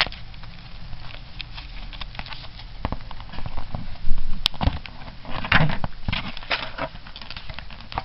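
Tape being ripped off the inside of a cardboard box, with irregular crackling, rustling and handling taps. The loudest bursts come about four seconds in and again a second or two later.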